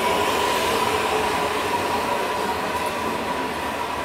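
Beijing Subway DZK16 train pulling into the platform and slowing, its running noise carrying a steady whine that slowly fades as it loses speed.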